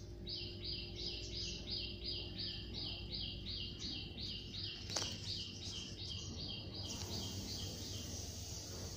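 A small animal's high chirps, repeated evenly about three times a second, stopping about a second before the end, with a single sharp click about halfway through.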